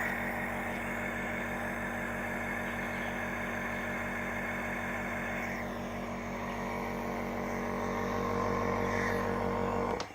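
Compressor nebulizer running: its small compressor hums steadily, pushing air through the medicine cup to the mask, and cuts off suddenly near the end.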